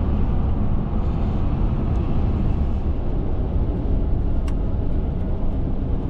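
Steady road and engine noise heard inside a moving car's cabin on a highway, with a single click about four and a half seconds in.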